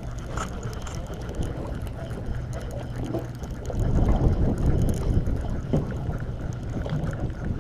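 Boat engine running with a steady low hum, under wind noise on the microphone that swells into a louder gust about four seconds in.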